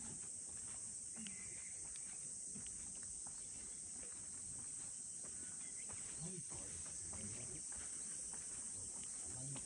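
A steady, high-pitched chorus of summer insects droning without a break.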